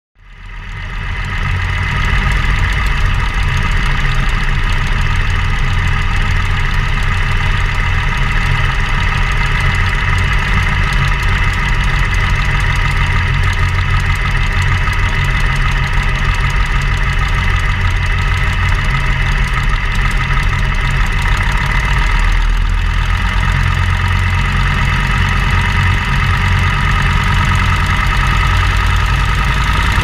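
Kinner radial engine of a Bird biplane running steadily at idle, fading in over the first second or two.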